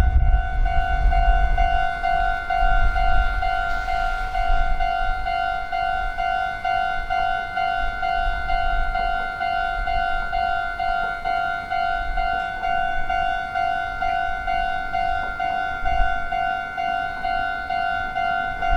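Japanese railway level-crossing warning bell ringing its repeated 'kan-kan', about two strikes a second, over a low rumble.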